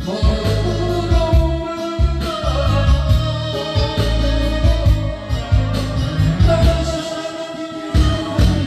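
Music with singing over a backing track with a strong, pulsing bass line.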